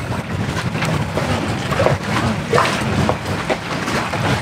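Steady wind and water noise around a moored catamaran, with faint clicks of rope and pliers being worked at a deck eyelet.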